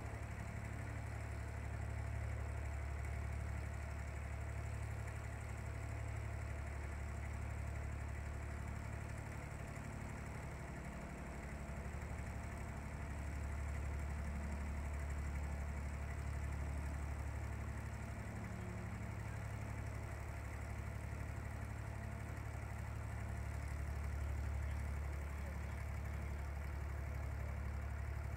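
Inboard engine of a wooden abra water taxi running steadily under way, a low drone that dips slightly about eleven seconds in and swells again later.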